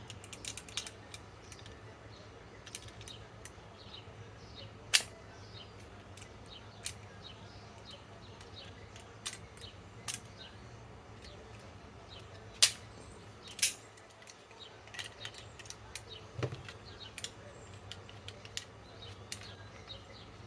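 Scattered sharp clicks and taps, a few of them louder, over a faint steady low hum.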